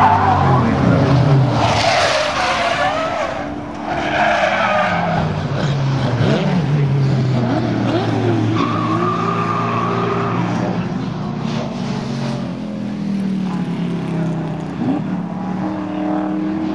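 Group A and C touring-car engines revving and running, with several tyre squeals in the first five seconds or so as cars slide on oil dumped on the track.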